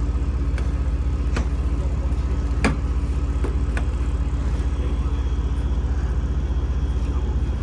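Tractor engine running steadily with an even low throb, with a few sharp knocks about a second apart in the first half.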